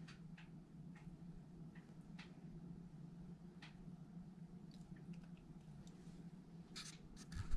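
Quiet room tone with a low steady hum, and faint scattered clicks and soft rustles of hands handling a leopard gecko as it crawls over them. A louder rustle comes near the end.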